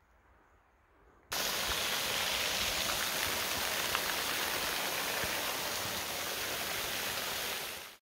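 Heavy rain pouring down, a dense steady hiss that starts abruptly about a second in and cuts off just before the end.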